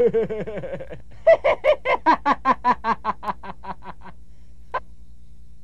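Two men laughing in turn: first a lower laugh in quick bursts, then a louder, higher 'ha-ha-ha' at about five a second that fades out about four seconds in.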